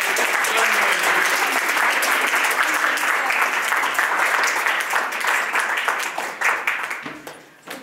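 Small audience applauding: a steady patter of hand claps that thins out and fades near the end.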